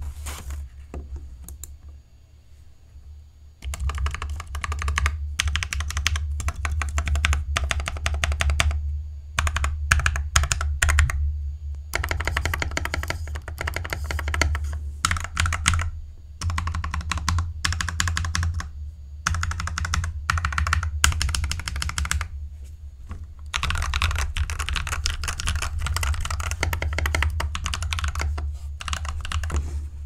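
Mechanical keyboard with Akko Ocean Blue switches and Izakaya keycaps, typed on in fast, steady runs of key clacks broken by short pauses. It is quieter for the first few seconds, then the typing picks up.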